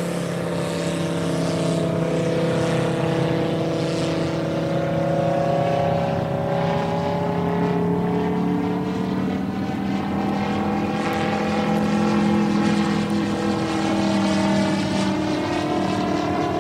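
The MOKI 250cc five-cylinder radial petrol engine of a quarter-scale CARF F4U Corsair model plane runs steadily in flight overhead. Its propeller drone rises and falls gently in pitch as the plane circles.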